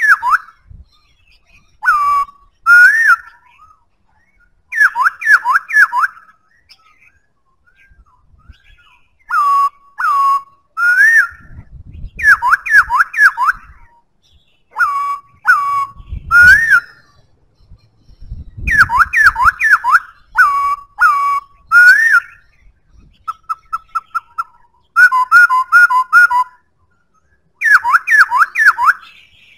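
Black-throated laughingthrush singing loudly: phrases of several quick, clear whistled notes that swoop down and up, with short pauses between phrases. One stretch near the end is a run of short, even notes.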